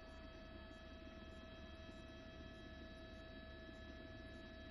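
Near silence: a faint, steady electrical hum with a few fixed whining tones.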